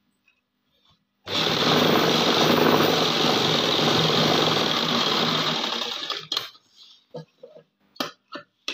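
Electric sewing machine running steadily for about four and a half seconds, starting about a second in, as it sews a line of stitches through the gathered elastic hem of a trouser leg. Afterwards come a few short clicks and a scissor snip as the thread is cut near the end.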